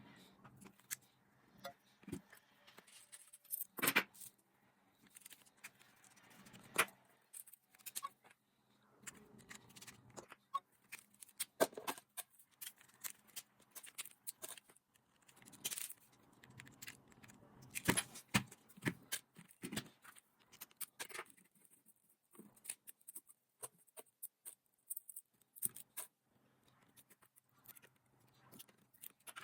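Irregular clicks, taps and light clatter of small hard tools and plastic parts being handled, with a few sharper knocks.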